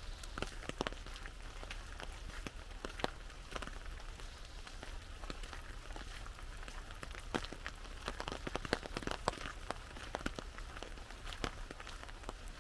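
Rain falling on an umbrella: a steady hiss of rain with many separate drops tapping the canopy at irregular moments, most densely about seven to nine seconds in.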